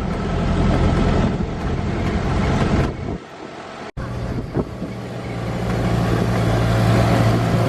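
Vehicle engine running steadily with a low hum, briefly dropping out and cutting back in about four seconds in.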